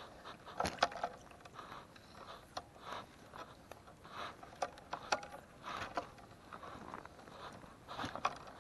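Fly rod, line and reel being handled between casts: irregular sharp clicks and short swishing rustles, quiet overall.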